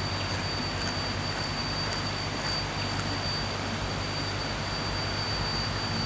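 Steady rush of water pouring over a small stepped weir, with a thin steady high tone running through it. A few faint crisp clicks of chewing in the first half.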